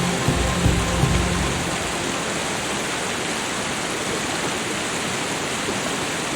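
Steady rushing water noise. Soft low music notes fade out in the first second and a half.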